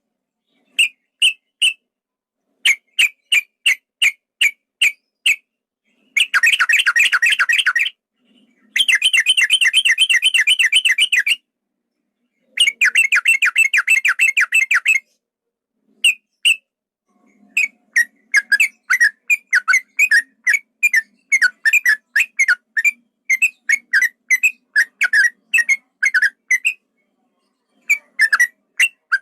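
Male yellow-vented bulbul (trucukan) singing: long, fast rolling trills of rapidly repeated notes broken by short pauses, then from about halfway a long run of separate, spaced whistled notes that slide downward.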